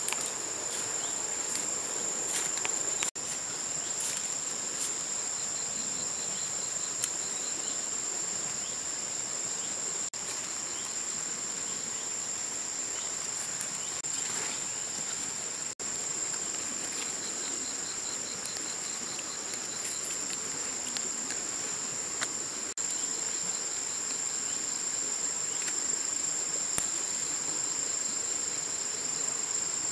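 Steady, high-pitched chorus of forest insects, a continuous shrill trill that breaks off for a moment a few times, with a few faint clicks over it.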